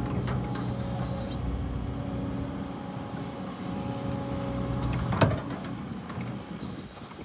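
Can-Am side-by-side engine running with a steady hum, a single sharp knock about five seconds in, then the sound easing off near the end.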